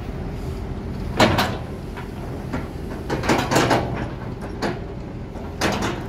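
Kobelco SK200-8 excavator's diesel engine running as the boom and bucket swing, with several short, sharp bursts of hydraulic and metal noise from the working arm, the loudest about a second in and around three and a half seconds in.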